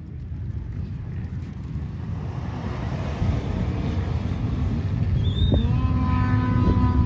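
Chevrolet Silverado pickup accelerating hard on snow-covered ice, its engine running under load as the rear wheels spin and throw snow; the rumble grows steadily louder. A steady pitched tone from another source joins near the end.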